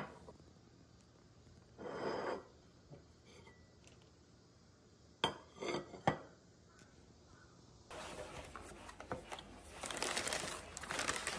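Ceramic plates clinking together a few times as they are stacked on a marble countertop, with a brief scrape before. About eight seconds in, kraft paper packaging starts rustling and crinkling steadily as a wrapped parcel is unpacked from its box.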